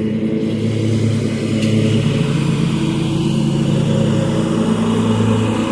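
Zero-turn lawn mower engine running steadily under load while mowing.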